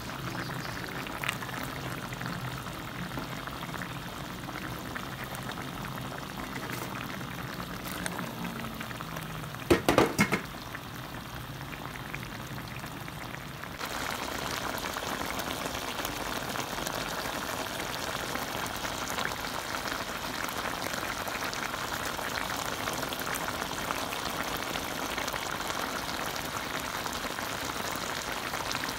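Coconut-milk sauce simmering in a pot of fish, a steady crackling bubble. A brief loud clatter comes about ten seconds in, and the bubbling is louder and busier from about the middle on.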